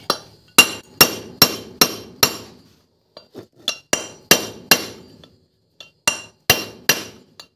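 Hammer striking a steel drift to drive a tight-fitting new valve guide into a cylinder head. Sharp, ringing metal-on-metal blows come in groups: five quick ones, a few light taps, then two more runs of three or four.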